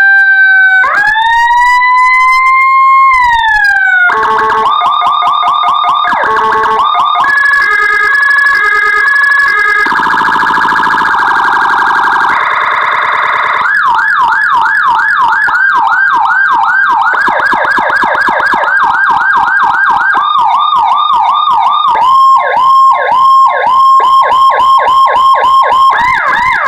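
Electronic police siren module played through a horn speaker, running Whelen HHS3200-style tones: a slow wail rising and falling, then two-tone hi-lo, a fast warble, yelp sweeps about two a second and choppy stuttering chirps, switching pattern every few seconds.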